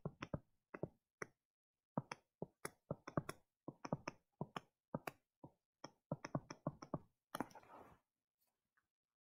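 Faint, irregular taps and clicks of a stylus tip on a tablet screen during handwriting, several a second, stopping about eight seconds in.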